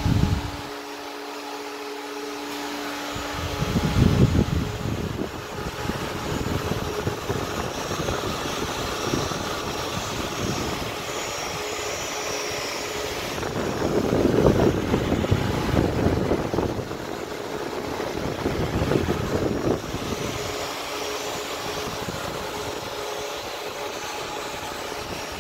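Cooling fans of a dual-Xeon PC running at full speed with a steady, loud rush of air, because the temperature sensor is removed. Deep gusts of air noise swell about four seconds in and again for a few seconds midway.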